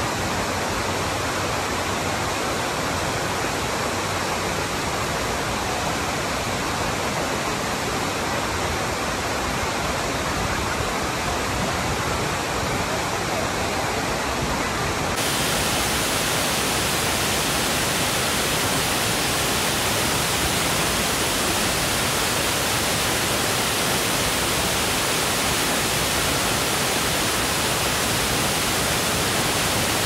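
Steady rush of a tall waterfall's falling water. About halfway it abruptly turns brighter and slightly louder.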